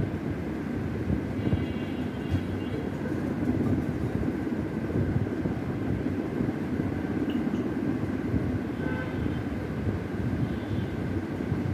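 Steady low rumbling background noise, with a faint, constant high hum and no speech.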